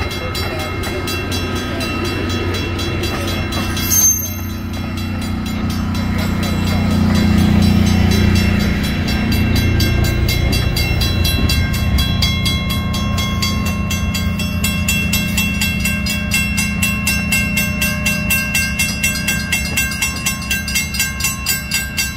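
Passenger train rolling past on the rails: a steady rumble of wheels and cars, with one sharp knock about four seconds in. Near the end, a quick regular clicking beat of wheels crossing rail joints.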